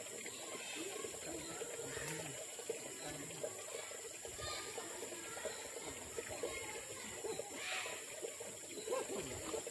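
Indistinct, unintelligible chatter of several people, over the steady trickle of running water from a river.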